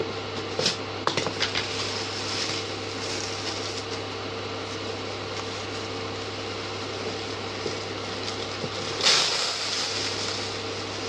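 A steady low hum runs under the handling of a plastic bag: a few light crinkles and clicks about a second in, and a brief louder rustle about nine seconds in.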